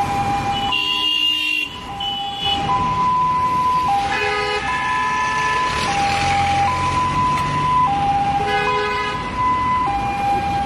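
Ambulance two-tone hi-lo siren, switching back and forth between a lower and a higher note about every second. Vehicle horn blasts sound over it about three times.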